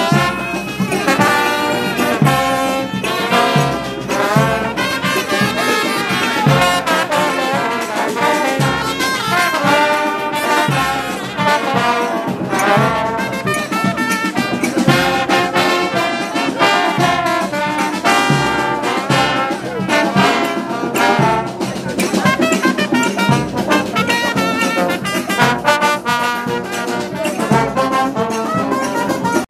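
Brass band music: trombones and trumpets playing over a steady beat.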